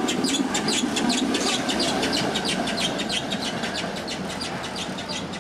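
PCC streetcar passing close and pulling away, its running rumble slowly fading. A rapid, even ticking, about five or six ticks a second, sounds throughout.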